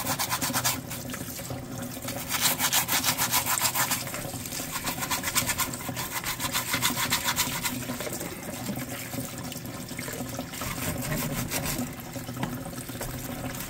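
A stiff-bristled plastic scrub brush scrubbed quickly back and forth over a live crab's shell, a fast rasping stroke pattern that comes in spells. Tap water runs and splashes into the steel sink underneath.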